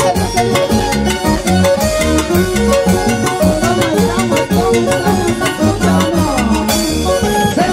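Live band playing upbeat dance music with a steady, regular drum beat and melody instruments.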